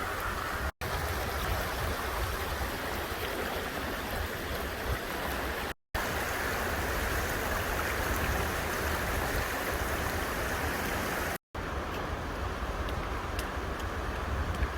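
Steady rushing of flowing river water, broken three times by brief dead-silent gaps.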